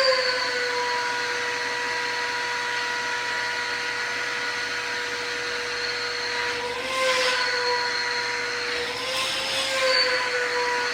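Stanley 4-gallon wet/dry shop vacuum running with a steady motor whine. The pitch briefly rises twice, about seven and nine seconds in, each time with a surge of rushing air.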